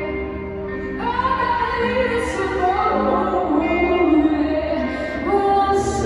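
Rock band playing through a stadium PA during a soundcheck, a woman singing long held and gliding notes over it. Heard from the stands of an empty stadium.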